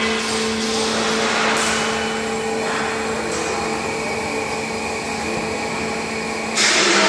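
Hydraulic power unit of a fixed scissor lift running as the platform rises: a steady motor-and-pump hum with a hiss over it. The hiss grows louder near the end.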